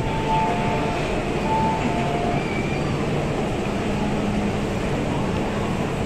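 Busy underground metro platform with an MTR Island Line train standing at it: steady noise from the train and the station. A two-tone high-low chime sounds twice in the first couple of seconds.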